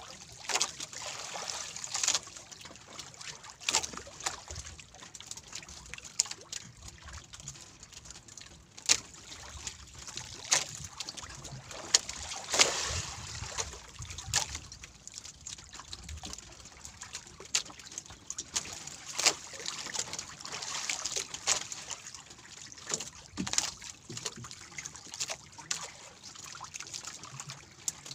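Water sloshing and splashing against a small wooden outrigger boat's hull, with irregular sharp splashes and drips as a fishing longline is hauled in by hand.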